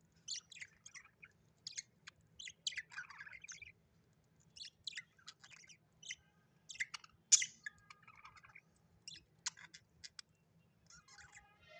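Budgerigars chirping in short, scattered calls, with one louder, sharper call about seven seconds in.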